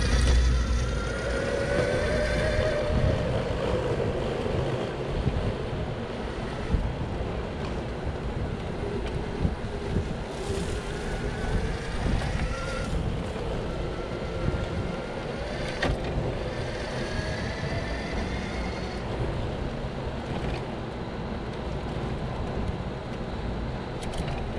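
Electric wheelchair drive motor whining, its pitch rising as it speeds up in the first seconds and then rising and falling with speed, over steady wind buffeting the microphone. A few sharp knocks are heard near the middle.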